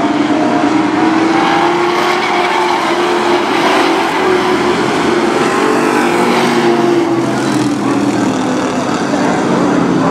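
Several race-truck engines running together on a short oval track: a loud, continuous engine drone whose pitch drifts slightly up and down as the trucks circulate.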